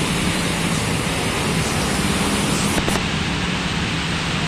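Cars and motorbikes driving through a flooded road: a steady rushing of water churned up and sprayed by their wheels, over the low hum of their engines.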